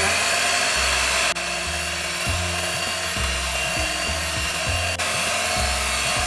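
Electric hand mixer running at a steady low speed with a constant motor whine, its wire beaters whipping heavy cream and condensed milk in a glass bowl.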